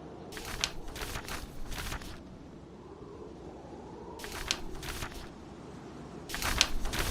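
Paper pages being turned in three rustling bursts, the last the loudest, over a steady background of wind and low fire noise.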